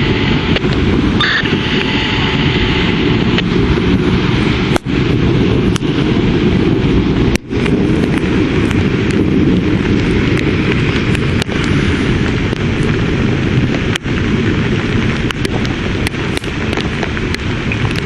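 Thunderstorm wind buffeting the microphone, with rain and a heavy, steady low rumble. The sound drops out briefly twice, about five and seven and a half seconds in.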